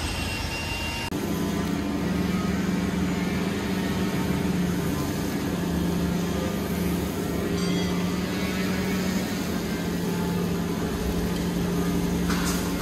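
Heavy machinery running steadily with a low, even hum; the sound changes abruptly about a second in.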